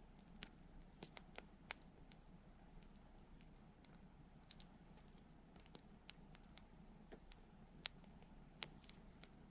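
Wood campfire crackling: irregular sharp pops and snaps, a dozen or so, over a faint steady low background, with the loudest snaps near the end.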